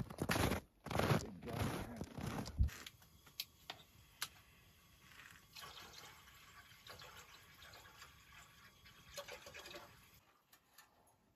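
Footsteps on snow for the first few seconds, then water poured from a plastic bottle into a metal pot on a camp stove, with a few small clinks.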